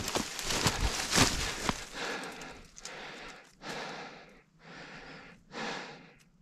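Footsteps crunching through dry leaves and brush in the woods. The first two seconds are a quick run of sharp crunches, then come four slower, longer rustling swishes with short gaps between them.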